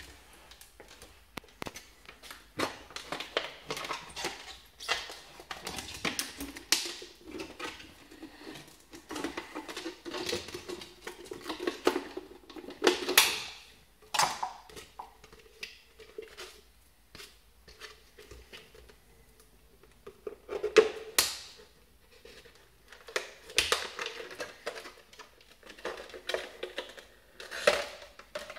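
A utility knife cutting through a thin plastic soda bottle: irregular crackling, clicking and crinkling of the plastic as the blade works through it and the bottle is handled, with a few sharper cracks about 13 and 21 seconds in.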